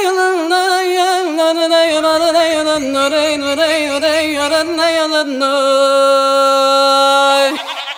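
A solo voice singing a slow, ornamented melody with a wavering, sliding pitch, ending on a long held lower note that stops shortly before the end.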